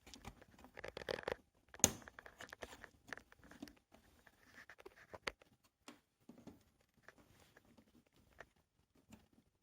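Plastic TV bezel being pried off its housing: scattered clicks and scrapes of the plastic clips, with one sharp snap about two seconds in.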